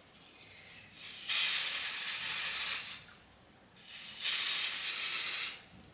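Two long hisses from an aerosol wig-holding spray can, each lasting about two seconds, the second starting about a second after the first stops.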